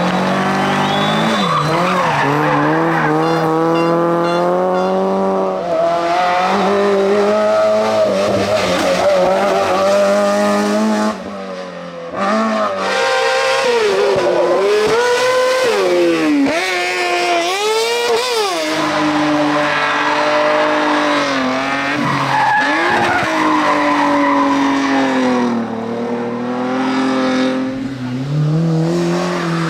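Competition car engine at high revs on a hillclimb, pitch rising and falling repeatedly as it accelerates, shifts gear and lifts off, with tyres squealing. The sound drops briefly about eleven seconds in.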